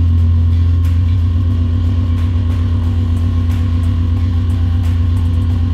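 Turn milling on a multitasking CNC machine: a Sandvik Coromant insert milling cutter cutting a slowly rotating bar. It is a loud, steady low drone with a fast flutter and scattered small ticks.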